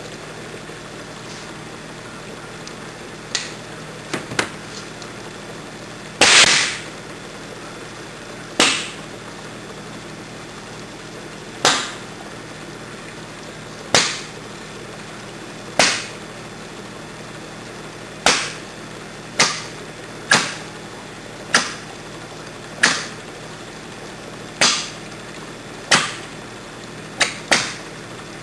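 HHO (hydrogen-oxygen) gas popping as a torch flame ignites it at the open end of the bubbler tube: sharp pops, one every second or two, the loudest a double burst about six seconds in. A steady hiss runs beneath.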